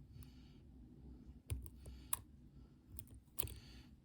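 Small irregular metallic clicks and light scraping of a pick and tension wrenches working the pins inside an MCM AS6 dimple lock.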